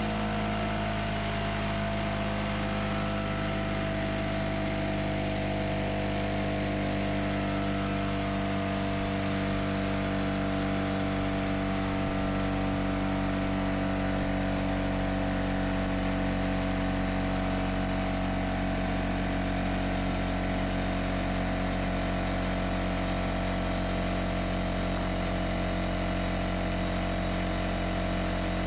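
Porter Cable oil-free pancake air compressor running steadily, its motor and pump building pressure in the tank. A constant hum with a pitch that settles slightly in the first second.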